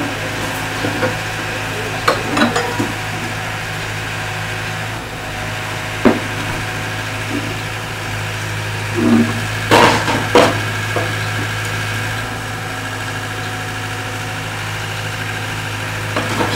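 Excavator engine running steadily, with several sharp metal clanks: a couple about 2 seconds in, one near 6 seconds, and a loud cluster around 10 seconds.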